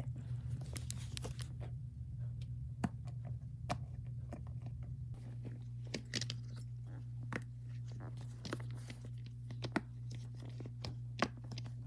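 Silicone bubbles of a Pop-It purse being pressed in and out, giving a run of irregular soft pops and clicks.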